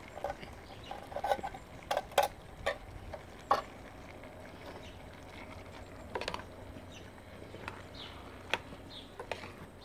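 Irregular light metallic clicks and knocks, several in the first few seconds and a few more near the end: a tin can and a spoon being handled against a stainless steel cooking pot.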